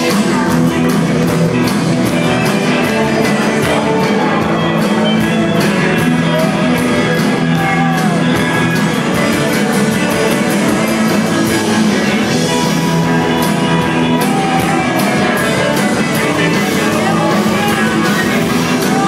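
Live rock band playing loudly, with electric guitars and drums on a steady beat.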